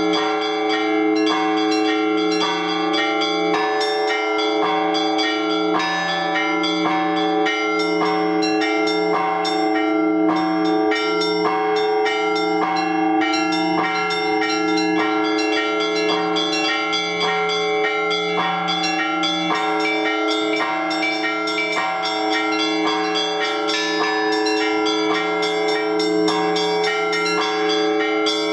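Orthodox church bells rung together in a peal calling the faithful to the liturgy. A low bell is struck about once a second beneath rapid, continuous patterns of smaller bells, all ringing over one another.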